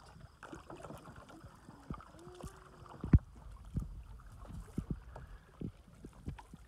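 Canoe paddling on a river: paddle strokes and water splashing and lapping against the hull at irregular moments, with a single sharp knock about three seconds in.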